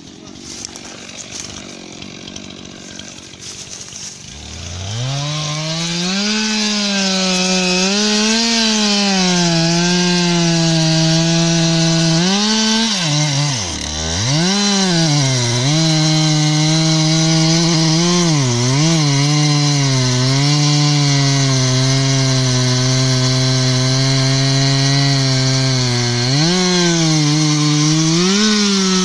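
Stihl MS 362 C two-stroke chainsaw revving up about four seconds in and cutting into the base of a standing tree's trunk under load, its pitch wavering as the chain bites. About halfway through the throttle drops and the engine nearly falls to idle before revving back into the cut.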